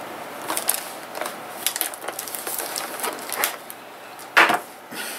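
Cardboard and plastic toy packaging being handled and pulled at to free the figure inside: irregular clicks, taps and crinkles, with one louder crackle a little over four seconds in.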